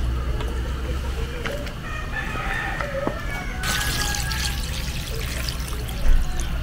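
Water poured from a dipper into a stainless steel pot of soup, a steady splashing pour that starts about halfway through and keeps going. Before the pour, a rooster crows.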